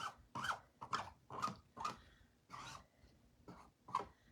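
Squeegee scraping over a silk-screen stencil with chalk paste in repeated short strokes, about two a second, with one longer stroke near the middle. The strokes scrape off excess paste and work it into air bubbles.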